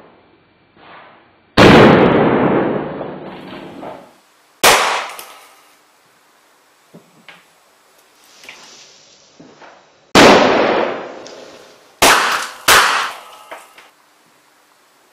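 Explosive charges going off one after another inside a sculpted skull, tearing holes through its shell. There are five sharp bangs, each fading away over a second or two, with a few faint pops in between. The first bang and the one about ten seconds in are the loudest, and the last two come close together.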